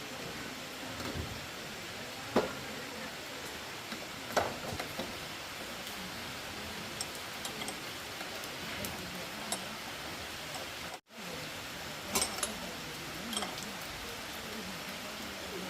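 Steady hiss with scattered light clicks and knocks, the sharpest about two and four seconds in and a small cluster near the end, like parts and tools being handled, with a brief dropout about eleven seconds in.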